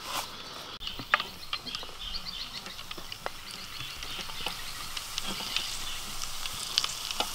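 Breaded shrimp deep-frying in a wok of hot oil: a steady sizzle with scattered crackling pops, growing a little louder toward the end.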